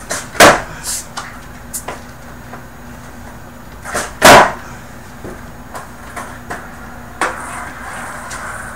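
Skateboard landing tricks on a carpeted basement floor: two loud clacks of the board hitting down, about half a second in and about four seconds in, with lighter knocks of the deck and wheels between them. A sharper knock comes about seven seconds in, followed by a short stretch of rolling noise.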